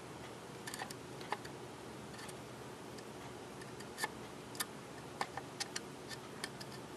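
Faint, scattered light ticks and clicks at uneven intervals, more of them in the second half, from a soldering iron tip being worked against the pins of a through-hole chip on a printed circuit board to remelt the solder for desoldering.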